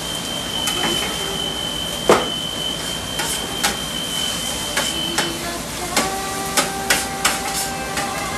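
Metal spatulas clinking and scraping on a steel flat-top griddle while fried rice sizzles on it. There are sharp clinks throughout, the loudest about two seconds in and a quick run of them near the end.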